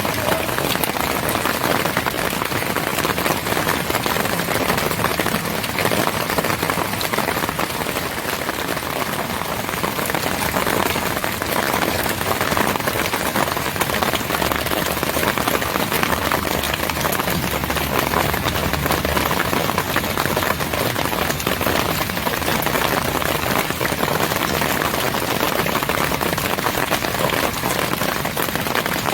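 Steady, dense rainfall.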